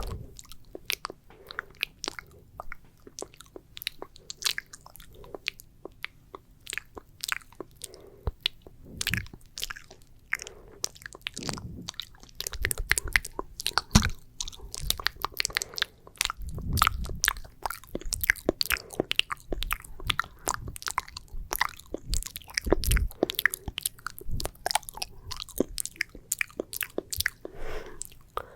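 ASMR mouth sounds close to the microphone: sticky, wet saliva clicks and smacks, dense and irregular, with a few soft low thumps in the middle.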